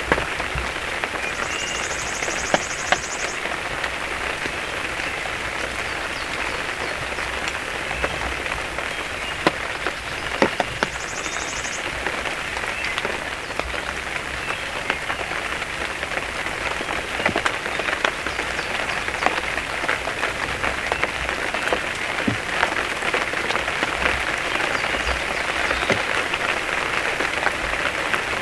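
Steady rain falling, with scattered sharp taps of single drops striking close by.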